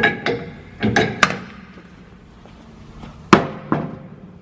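Sharp metal-on-metal clanks and knocks from a wheel being handled on a tire balancer: several in quick succession in the first second and a half, then two more about three and a half seconds in, each leaving a brief ringing tone.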